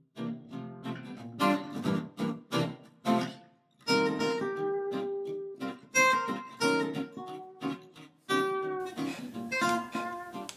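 Background music on acoustic guitar: a run of strummed chords, then picked notes that ring out and fade.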